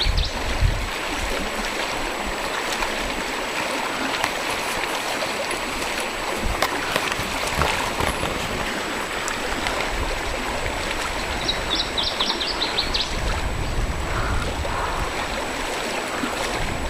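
Steady rush of flowing river water, with a brief run of high chirps about twelve seconds in.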